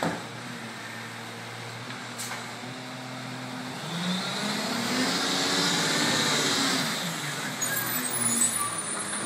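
Automated side-loader garbage truck's engine running low, then revving up about halfway through as the truck pulls forward along the curb and dropping back as it draws up to the next bins.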